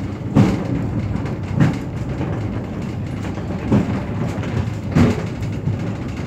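Funicular car running along its inclined track: a steady rumble with four heavy thumps at gaps of one to two seconds.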